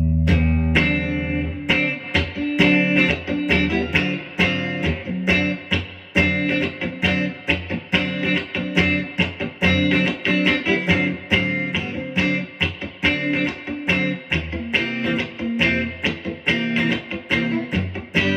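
PRS SE Swamp Ash Special electric guitar played through an amp on its neck pickup, a Planet Tone Memphis Historical spec vintage-style humbucker. A low chord rings out, then comes a steady run of quick picked notes and short chords, several a second.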